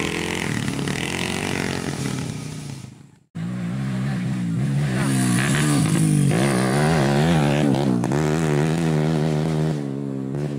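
Dirt bike engines on a motocross track. The first engine fades and cuts off about three seconds in. Then a bike approaches, its revs rising and falling again and again as the rider works the throttle.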